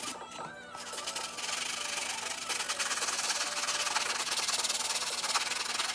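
Rapid, steady rubbing strokes on a sneaker's surface, building up about a second in and carrying on without a break.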